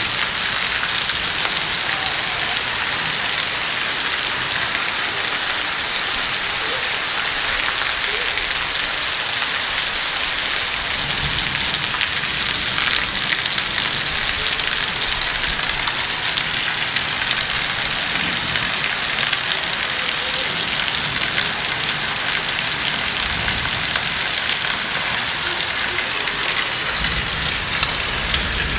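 Steady rain falling on rooftops and a flooded street, a continuous even hiss of rain.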